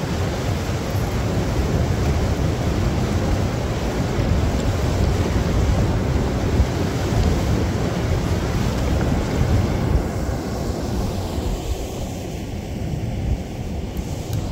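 Water rushing over a small rock waterfall: a steady, continuous rush of white water, thinning in the higher range over the last few seconds.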